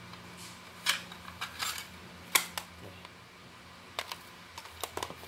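Plastic audio cassettes and cases clicking and clacking as they are handled: a scatter of sharp clicks, the loudest about one second and two and a half seconds in.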